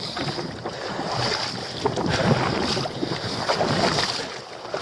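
Seawater sloshing and splashing among rocks in the shallows, with wind buffeting the microphone.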